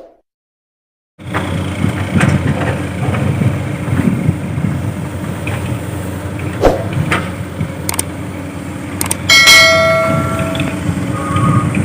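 Diesel engine of a Komatsu excavator running under load, starting about a second in, with scattered knocks and clanks of rock and steel. About three-quarters of the way through, a loud bell-like metallic clang rings for over a second, and near the end come faint repeated beeps.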